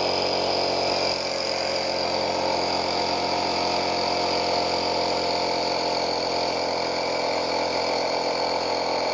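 HALO Bolt Air+ portable air compressor running, very loud and steady, as it pumps a tire up toward its set 33 PSI.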